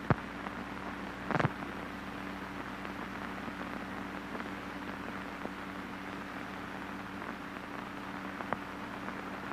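Steady hiss and low hum of an old film soundtrack with no voice or music, broken by a few crackles and pops, the loudest about a second and a half in.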